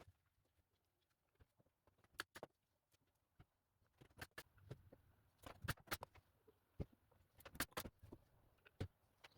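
Irregular light knocks and clicks of wood and hand tools being handled at a workbench, a few isolated ones early and a busier run in the second half, with near silence between.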